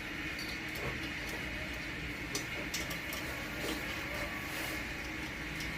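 Steady workshop hum with a few light clicks and taps scattered through it.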